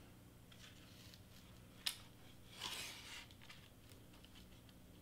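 Faint handling noises from hot-glue work on foam board: a sharp click about two seconds in, then a brief scraping rustle.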